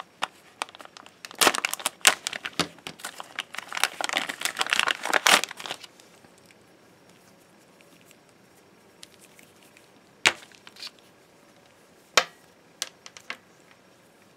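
Clear plastic bag crinkling and rustling as a coiled test cable is pulled out of it, dense for a few seconds and then stopping, followed later by a few sharp clicks as the cable is handled.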